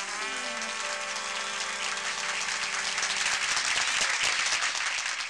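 Live audience applauding as a Dixieland jazz band finishes a number. The band's last held notes, with a falling slide, die away in the first second, and the clapping grows louder toward the end.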